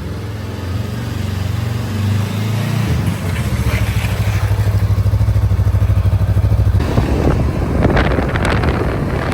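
Small motorbike engine running steadily while riding. Wind noise on the microphone picks up near the end.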